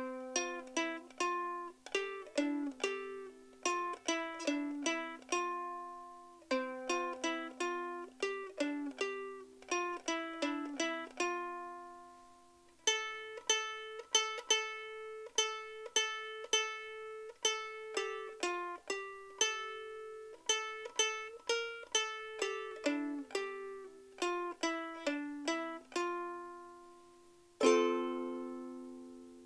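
Martin S-1 soprano ukulele played note by note, a picked melody in short phrases with brief pauses between them. Near the end a single strummed chord rings out and fades.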